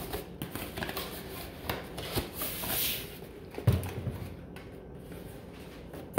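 Handling noises: scattered light clicks and rustles, a longer rustle about two and a half seconds in, and a dull thump near four seconds.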